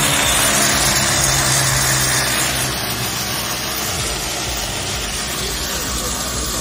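Small air-cooled motorcycle engine running steadily at idle on petrol vapour fed through its carburettor, with a steady low hum and a lot of hiss. It eases off a little about two and a half seconds in.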